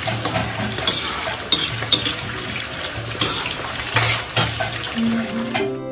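Green capsicum (bell pepper) pieces sizzling in a kadai as they are stir-fried, with repeated clinks and scrapes of metal tongs and a spoon against the pan. Near the end the frying cuts off and plucked-string music begins.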